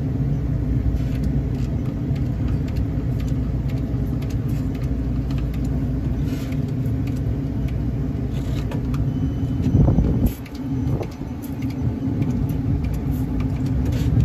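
Leak-detection spray bottle being worked over refrigerant piping, its trigger giving short clicks now and then, against a steady low rumble that swells briefly about ten seconds in.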